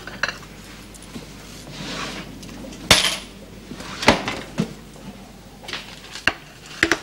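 China crockery clinking: a plate and a cup on its saucer knocking and being set down, in a series of sharp clinks, the loudest about three seconds in, with two more as they go down on a table near the end.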